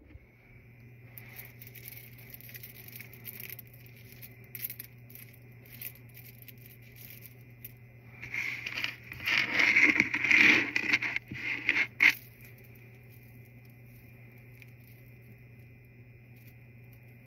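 Jewelry handled close to the microphone: beads and a chain rustling and clicking together as a bracelet and necklace are put on. It grows louder about eight seconds in and ends in a sharp click about twelve seconds in, over a steady low hum.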